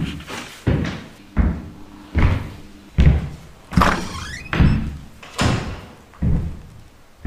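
A steady series of heavy thudding hits, about one every 0.8 seconds, each fading before the next, with a short gliding squeak in the middle: a suspense beat laid over the scene.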